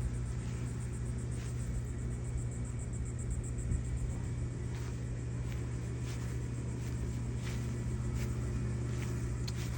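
A steady low mechanical hum, like a motor running, with faint light ticks and rustles over it.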